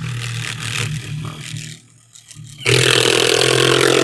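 Power drill driving a screw through a window flange into the wall: the motor runs for a couple of seconds, stops briefly, then runs again louder and rougher as the screw is driven home.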